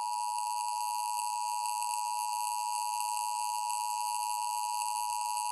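Emergency Alert System attention signal: a loud, steady two-tone alert tone held at one pitch, announcing an emergency alert, here a severe thunderstorm warning.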